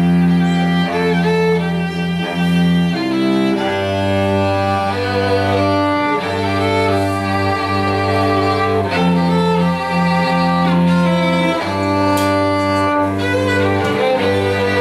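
Live string ensemble of two violins, viola and cello playing a slow arrangement. Long bowed notes carry the melody over low held notes that change every few seconds.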